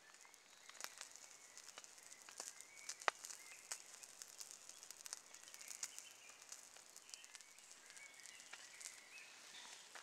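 Faint crackling and popping of a wood fire's coals with a steak cooking directly on them: scattered sharp pops at irregular intervals, the loudest about three seconds in.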